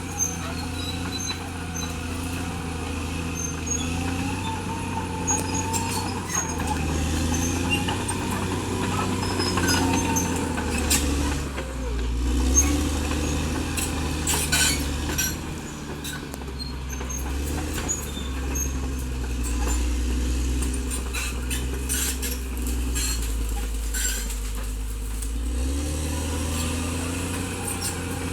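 Caterpillar D6R XL bulldozer's diesel engine working under load, its pitch shifting as it pushes, with many short sharp clanks and cracks scattered through, thickest in the middle.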